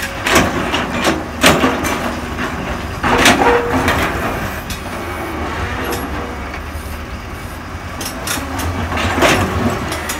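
Komatsu PC200 excavator's diesel engine running steadily under load while its bucket digs into loose quarry rock, with stones knocking and clattering several times, loudest about three seconds in.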